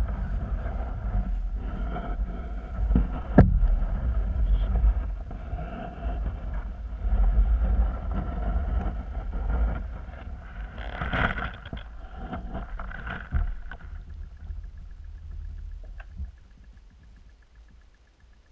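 Muffled underwater rumble and knocking picked up through a GoPro's waterproof housing as the camera moves through the water, with a sharp knock about three seconds in and another flurry around eleven seconds. After about fourteen seconds it drops to a faint steady hum.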